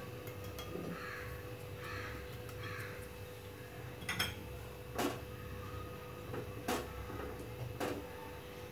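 A crow cawing three times in the background, followed by four sharp knocks, the loudest sounds, as a silicone spatula stirs milk and milk powder in a metal kadhai, over a steady low hum.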